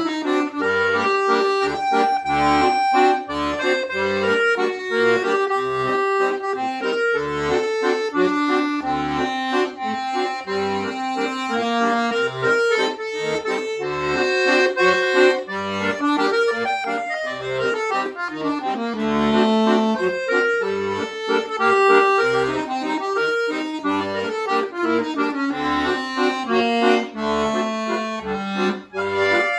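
Chromatic button accordion (bayan) playing a solo piece: a sustained melody line over a regular pulse of short left-hand bass notes, with quick falling runs a little past the middle and again near the end.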